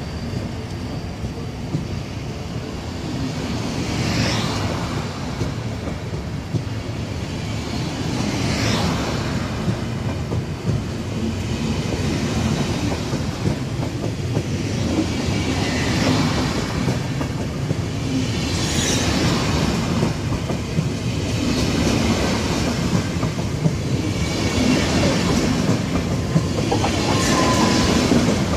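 SBB double-deck passenger coaches rolling slowly past close by with a steady rumble. A burst of wheel clatter and squeal comes every four seconds or so as each coach's wheels pass, growing slightly louder toward the end.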